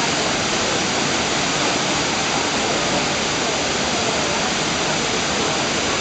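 Steady rush of Shiraito Falls, a broad curtain waterfall of spring water pouring from gaps in lava rock into its pool.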